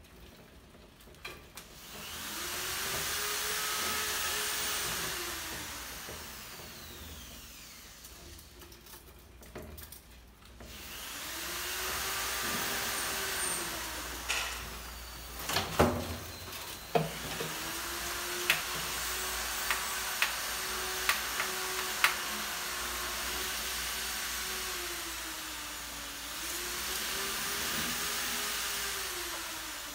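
A whirring mechanical noise with a wavering mid-pitched tone, swelling and fading several times. A cluster of sharp knocks and clicks comes near the middle.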